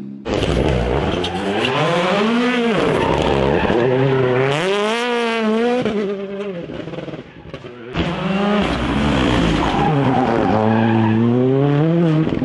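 Rally cars' turbocharged four-cylinder engines revving hard, the pitch repeatedly rising and falling as they accelerate, lift and change gear, with tyres skidding on loose dirt. The sound breaks off abruptly about 8 seconds in and picks up again with another car.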